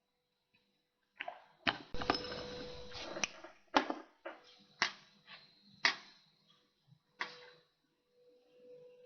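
Small tools clicking and tapping on a mechanical watch during hand fitting: about seven sharp clicks at uneven intervals, with a short rustle of handling in the first half.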